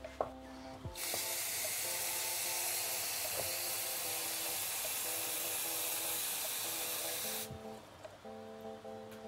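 Water running from a kitchen tap into a cooking pot, a steady hiss that starts about a second in and stops suddenly after about six seconds. Background music plays throughout.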